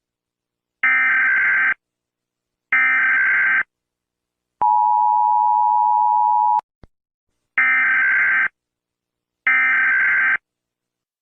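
Emergency Alert System signalling tones: two short harsh buzzing bursts of SAME digital data, about a second each, then a steady two-tone attention signal for about two seconds, then two more data bursts.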